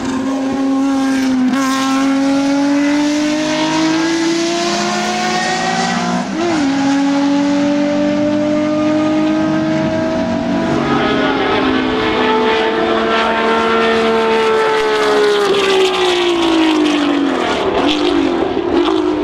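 BMW M1 race cars' unmuffled 3.5-litre straight-six engines screaming at full throttle: the engine note climbs steadily, with a quick gear change about six seconds in, climbs again, then falls away near the end.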